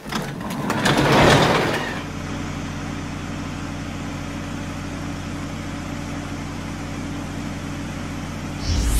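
Cartoon sound effect of a heavy truck engine: a loud noisy surge peaking about a second in, then a steady idle. Near the end a louder, deeper rumble starts.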